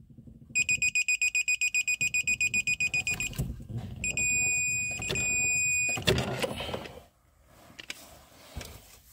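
Yellow Jacket digital torque wrench beeping rapidly, about nine beeps a second, as a rotolock valve fitting on the A/C compressor is tightened. It then gives two long steady beeps as the set torque is reached. A short clatter of handling follows.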